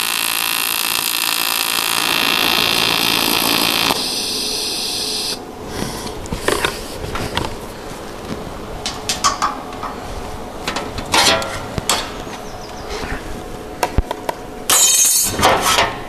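TIG welding arc on an aluminium bumper, fed with 5% silicon filler rod, running with a steady buzzing hiss for about four seconds, then tapering and cutting off about five seconds in. After it come scattered clinks and knocks of metal tools and clamps being handled, with a louder rasping noise near the end.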